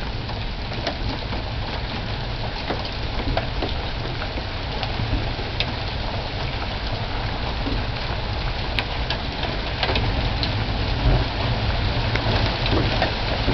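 Steady rain pouring down, with frequent sharp ticks of drops striking close by.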